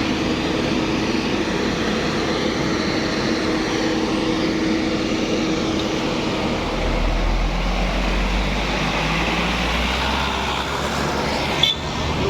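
Heavy vehicle engine running close by with traffic noise, a deep engine rumble swelling from about seven seconds in and easing off around ten seconds. A single sharp click near the end.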